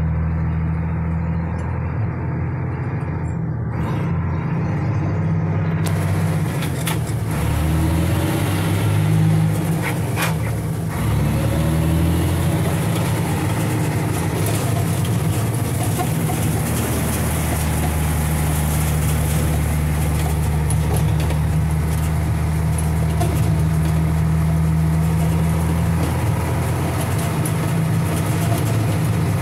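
An old farm truck's engine running steadily at low speed, heard from inside the cab as the truck moves slowly along, with a few brief knocks and rattles about ten seconds in.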